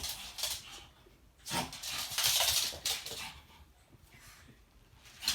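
A puppy making short, scrappy noises during play, in several brief bursts with pauses between.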